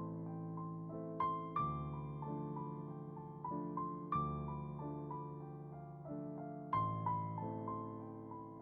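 Slow, gentle solo piano music: a soft melody over sustained low chords, each phrase opening with a struck note that rings away.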